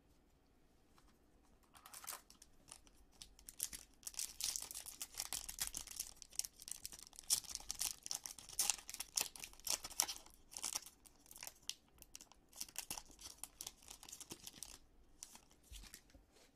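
Foil wrapper of a Topps Chrome trading-card pack being torn open and crinkled by hand. It is a run of sharp crackling that starts about two seconds in and dies away shortly before the end.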